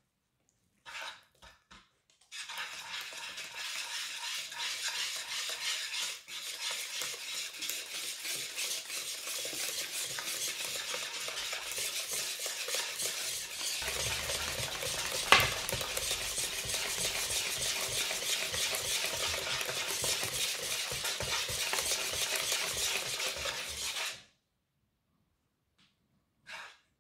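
Wire balloon whisk beating egg yolks and flour into a chiffon cake batter, its wires scraping and tapping against the bowl in a fast, steady rattle that stops near the end. One sharper knock of the whisk on the bowl about fifteen seconds in.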